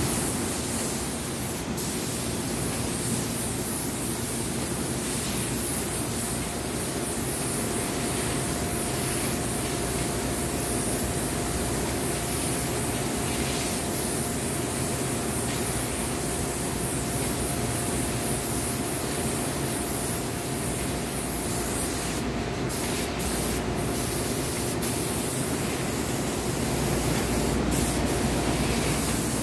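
Spray gun hissing steadily as it atomises paint onto a table, a steady rush of air and spray with a faint steady tone joining about six seconds in.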